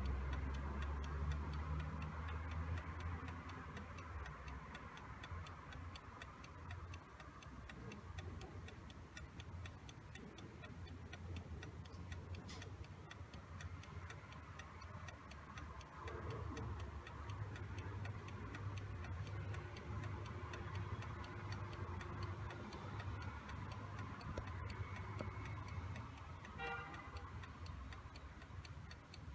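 Antique French Japy Frères mantel clock movement ticking steadily and evenly as its pendulum swings, with a low rumble in the background.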